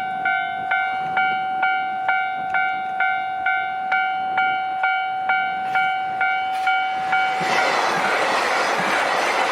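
A Japanese railway level crossing's electronic warning bell dings steadily, a little over twice a second. About seven seconds in, the loud rush of a KiHa 261 series diesel limited express passing over the crossing comes up and mostly covers the bell.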